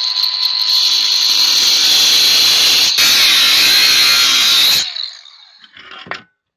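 Handheld electric grinder running at speed with a steady high whine, cutting metal. It falters briefly about three seconds in, then shuts off near five seconds and winds down.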